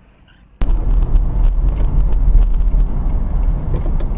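Car-cabin sound recorded by a dashcam: a steady low rumble of engine and road noise, starting abruptly about half a second in after a brief quiet moment.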